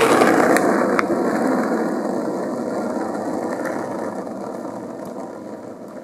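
Skateboard wheels rolling on asphalt: a steady rumble that fades as the board rolls away, with a couple of sharp clicks about a second in.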